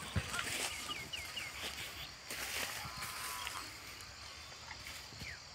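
Dry field stubble rustling and crackling as a calf grazes and steps through it, with a few short high chirps in the background.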